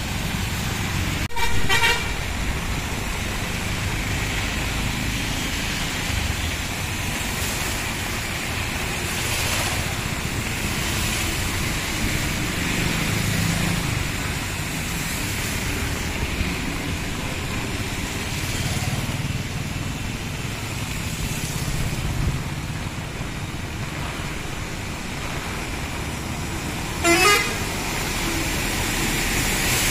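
Road traffic driving through floodwater in heavy rain: a steady wash of tyres splashing and engines running, with two short vehicle horn toots, one about a second and a half in and one near the end.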